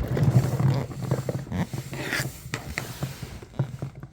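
Scattered light clicks, knocks and rustling, irregular and fading toward the end.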